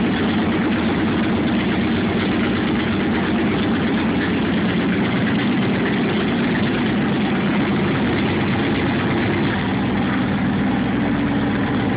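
2009 Victory Hammer S's 106 cubic-inch V-twin idling steadily through its 2-into-1 exhaust, with no revving.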